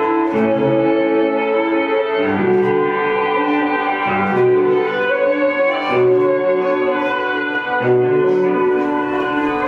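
Slow instrumental processional music for the bride's entrance, long held notes with the chord changing about every two seconds.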